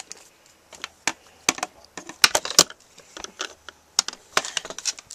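Plastic toy screwdrivers being handled: a string of irregular sharp clicks and taps.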